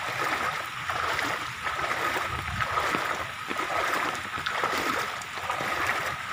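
Fast-flowing floodwater rushing, with irregular sloshing and splashing as a person wades through it.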